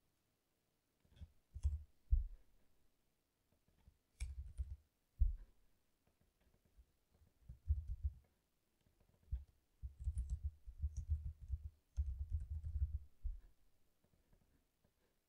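Computer keyboard typing in several short runs of rapid keystrokes. The strokes are heard mostly as dull low thuds, with a few sharper clicks.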